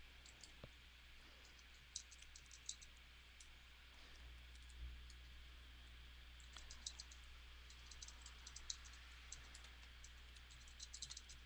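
Faint, rapid clicking of a computer keyboard being typed on and a mouse being clicked, coming in quick clusters that grow busier in the second half, over a steady low electrical hum.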